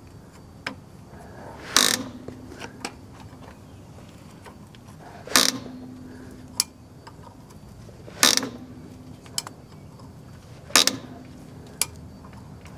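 Semi truck's automatic slack adjuster being turned counterclockwise with a wrench, giving four loud clacks roughly every three seconds, each followed by a short metallic ring, with lighter clicks between. The clacking is the sign that the adjuster is backing off and pulling the brake shoes in, away from the drum.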